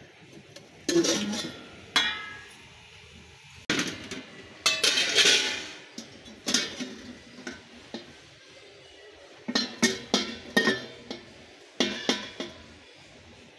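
Plastic storage containers and lids clattering and knocking together as they are picked up and handled on a store shelf, in irregular bursts, with a longer stretch of rustling handling about five seconds in.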